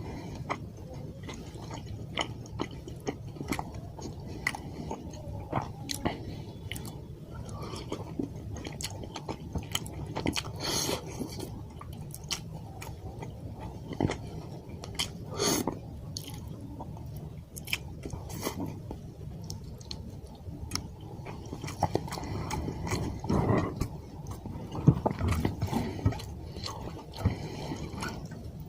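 A person eating fish curry and white rice close to the microphone: steady chewing with many short wet clicks and smacks, a little louder near the end.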